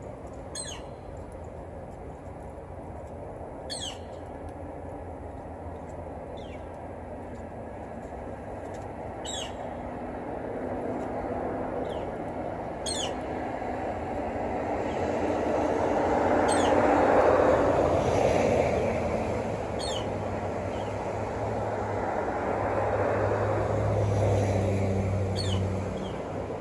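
Short, high, downward-slurred bird calls every few seconds, over a distant engine rumble that swells to its loudest about two-thirds of the way through and then fades.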